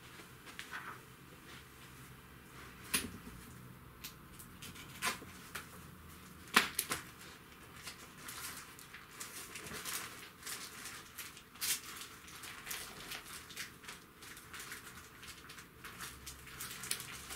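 Cardboard packaging being handled by hand: scattered irregular clicks, knocks and rustles, the loudest knock about six and a half seconds in.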